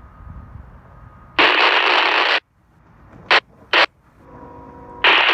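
Scanner radio tuned to railroad traffic breaking squelch: a loud burst of static about a second long that cuts off sharply, two short crackles, then another burst of static near the end.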